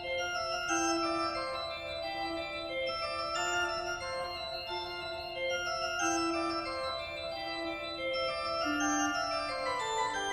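Background music: a melody of held, organ-like notes over sustained chords, moving from note to note at an even pace.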